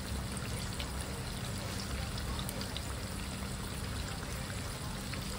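Flour-coated chicken pieces deep-frying in a pan of hot oil: a steady bubbling sizzle with fine crackles.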